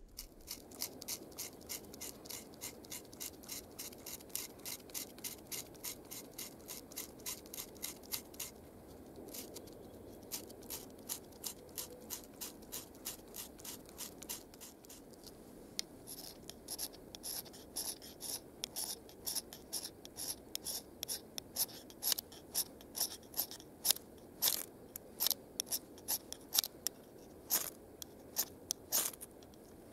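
A steel blade scraping birch bark in short, repeated strokes, about two or three a second, shaving it into fine tinder dust. The strokes grow sharper and louder a few seconds before the end.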